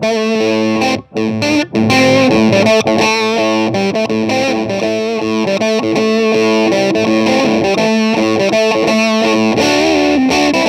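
Electric guitar played through an old-school fuzz pedal: a run of thick, sustained, distorted notes, with a couple of brief breaks about a second in.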